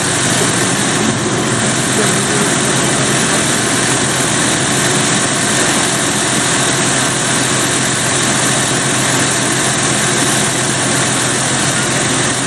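Diesel multiple unit standing at the platform with its engines idling: a steady, unchanging engine hum.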